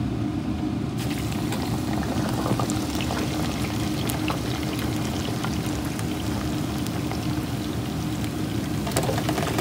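Raw-cut potato fries sizzling and crackling in the hot oil of a deep fryer, the crackle starting suddenly about a second in as the basket goes into the oil and then running on steadily. A steady low hum sits underneath.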